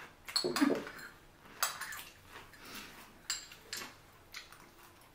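Eating at a table: a handful of separate clicks and clinks of utensils and seafood shells against dishes.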